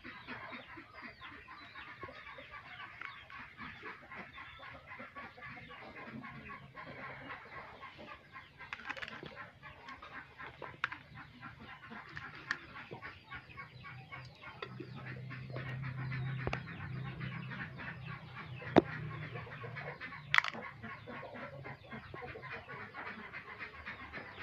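Chickens clucking in the background, with a few sharp clicks scattered through it and a low hum that swells for a few seconds past the middle.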